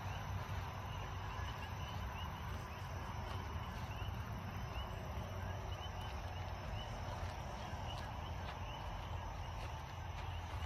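Steady outdoor background noise with a low rumble, and faint, quickly repeated high chirps from about two to six seconds in, like a bird calling.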